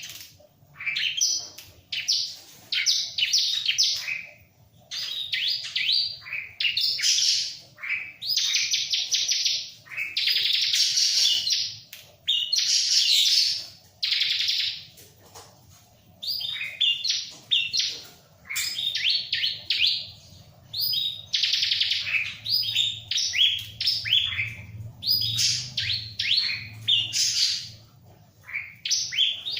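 Bar-winged prinia (ciblek) singing vigorously: rapid, high-pitched chirping phrases repeated one after another with only brief pauses.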